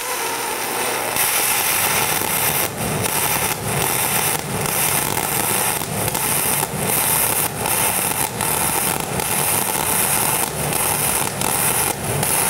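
MIG welding arc burning 0.035 solid steel wire on carbon steel under pure argon shielding gas: a loud, continuous crackling hiss with brief dips roughly once a second. The argon-only arc is run hot for a fluid pool, which the welder shows reacting unstably around its edges.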